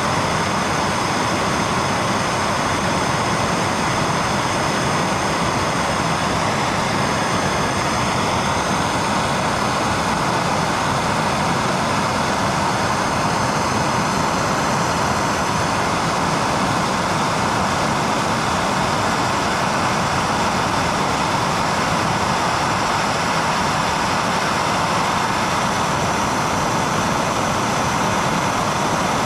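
Handheld gas brazing torch burning steadily with a constant hiss, its flame held on a metal joint to melt brazing rod into it.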